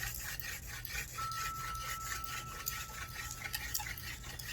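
Hand drill spinning back and forth in the notch of a palm-frond hearth board: a rhythmic rubbing of about four strokes a second, with a thin steady squeak for about two seconds in the middle. The drill is warming up the hearth before the real push for an ember.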